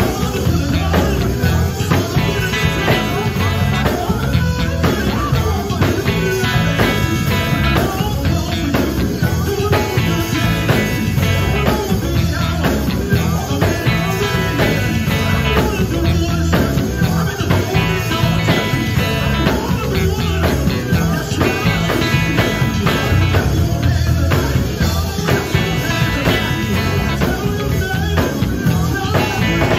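Live gospel band playing: a lead singer singing into a microphone over electric guitar, bass guitar and drum kit, with a steady beat throughout.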